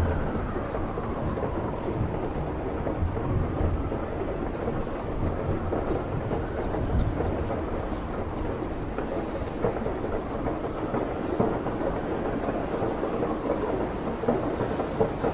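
Heavy rain pouring steadily, with low thunder rumbling underneath in uneven swells. A siren's falling wail fades out in the first couple of seconds.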